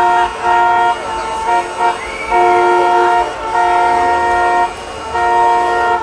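Car horns honking in a traffic jam: several horns at different pitches sound one after another in short and longer blasts, over a low rumble of traffic.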